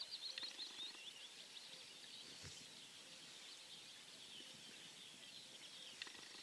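Faint birdsong: several small birds chirping and twittering in quick short notes, busiest in the first second and thinning out after.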